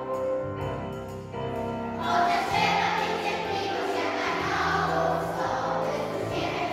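Children's choir singing together: a held, quieter passage, then the voices come in fuller and louder about two seconds in.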